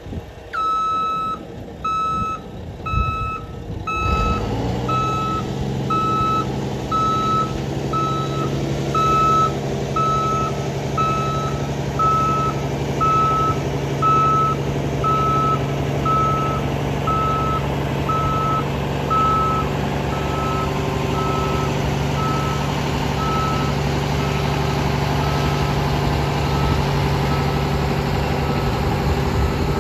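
2000 Mack flatbed truck backing up: its reverse alarm beeps steadily, a little faster than once a second, over the diesel engine. The engine picks up about four seconds in and then runs steadily, and the beeps grow fainter toward the end.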